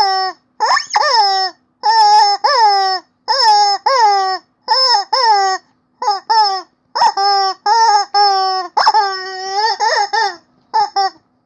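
Rubber chicken squeaky toy squeezed again and again: about a dozen short squeaks, many in quick pairs, each sliding down in pitch with an airy whistle on top. One longer, drawn-out squeak comes about three quarters of the way through.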